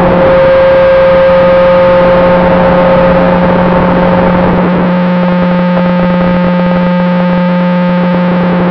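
Electric motor and propeller of an FPV model plane running steadily in flight, a loud steady drone with a constant whine over rushing air noise, picked up by the onboard camera.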